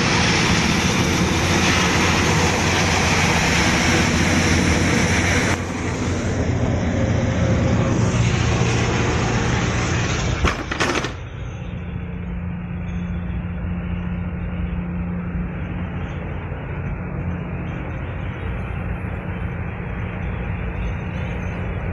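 Fire-fighting boat's engines and pumps running with the steady rush of its water cannons spraying. After a cut about ten seconds in, it settles to a quieter, even engine drone heard inside the wheelhouse.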